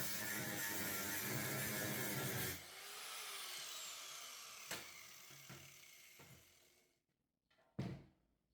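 Power saw cutting 16-gauge sheet steel. The cut stops about two and a half seconds in and the saw winds down with a falling whine, followed by a sharp click and, near the end, a short thump.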